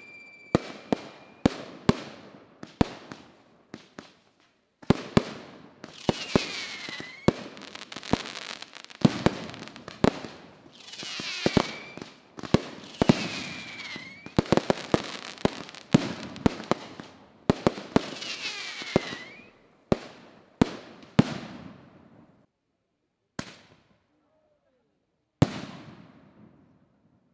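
Fireworks going off: a rapid run of sharp bangs and crackling, with several whistles that fall in pitch. Near the end it thins out to a few single bangs with short gaps between them.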